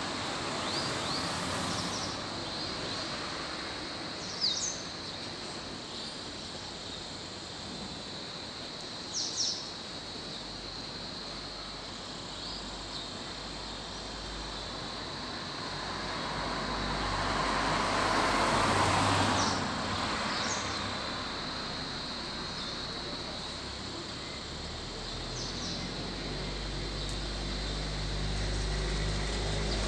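Outdoor ambience: a steady background hiss with a few short bird chirps scattered through. A vehicle swells up past the middle and falls away, and a low engine rumble comes in near the end.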